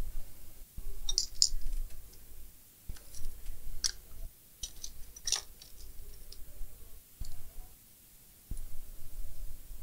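Irregular sharp clicks and light clinks of small hand tools being picked up and handled on a workbench, between dull low bumps of handling.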